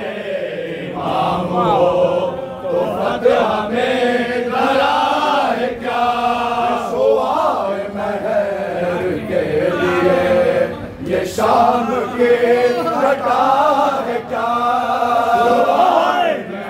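Urdu noha, a Shia lament for Hussain: men chanting in unison, a lead reciter with a group singing along.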